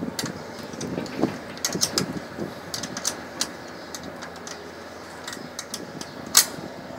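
Metal clicks and scraping as a hand tool works a latch on the metal access panel of a ground air-conditioning unit, with one sharp click, the loudest, about six seconds in.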